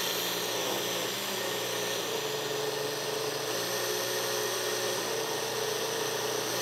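Countertop blender running steadily, puréeing a thick chickpea mix into chocolate hummus; its motor whine shifts slightly in pitch as the load changes.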